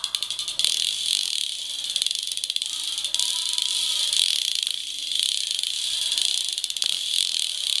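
Insects trilling steadily in a high-pitched chorus, a dense rapid pulsing that does not let up.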